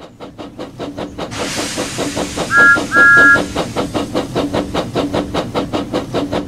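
Steam locomotive chuffing in an even, quick rhythm with a hiss of steam, its whistle blowing twice about two and a half seconds in, a short toot and then a longer one on two notes at once.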